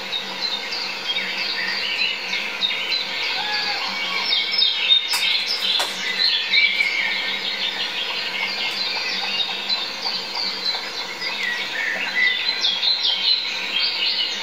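Chorus of small songbirds: many overlapping chirps and trills, with a couple of sharp clicks about five and six seconds in.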